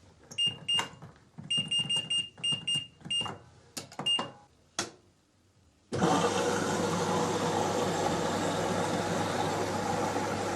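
Washing machine control panel beeping as its buttons are pressed: about ten short high beeps with clicks over the first five seconds. About six seconds in, a steady rushing sound with a low hum starts abruptly as the machine begins its cycle.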